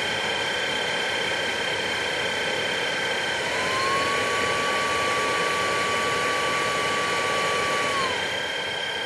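VacLife VL732 cordless stick vacuum running with a steady high whine from its brushless motor and brush roll. A second whine glides up about three and a half seconds in, holds steady, and drops away about eight seconds in.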